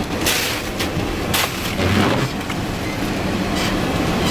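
Car driving on a rough, snow-covered road, heard from inside the cabin: a steady low rumble with bumps from the body shaking, and a few short hissing rushes.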